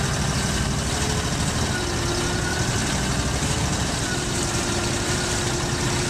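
Argo 8x8 amphibious ATV on Adair tracks, its engine running steadily as it crawls through a muddy creek, with water and mud churning around the tracks.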